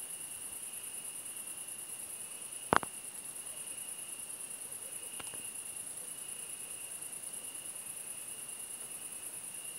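Crickets trilling steadily at night in two high pitches, one very high and finely pulsing. A single sharp knock comes a few seconds in.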